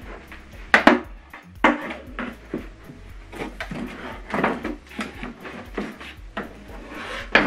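Irregular knocks, clicks and rustles of hands handling a flat-screen TV's plastic back and an HDMI cable while the cable is fed to the TV's rear ports.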